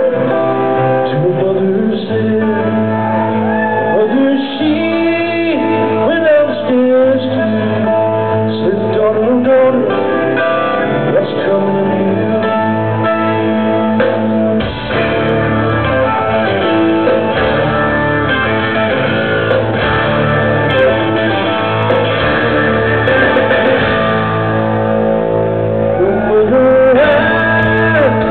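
A live rock band plays: a male lead vocal and electric guitar over bass and drums, heard from the crowd in a large hall. About halfway through, the bass and drums come in heavier.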